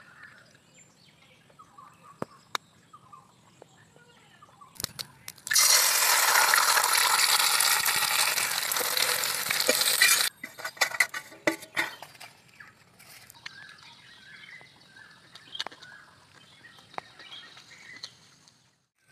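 Eggs frying in hot oil in a wok, a loud steady sizzle that starts about five seconds in and cuts off suddenly about five seconds later. Quieter scattered clicks and taps before and after it.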